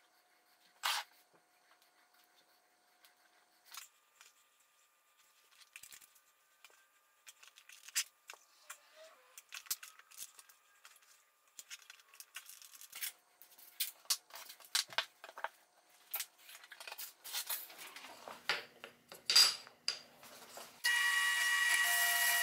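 Scattered small clicks, scrapes and rubs of hands fitting parts and driving a threaded insert into plywood. Near the end, a drill press cuts in, running with a steady whine.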